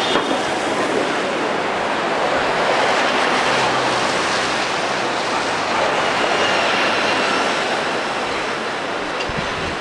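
Alexander Dennis Enviro500 double-decker diesel buses driving past close by in heavy city traffic: a steady, loud traffic noise with a low engine hum.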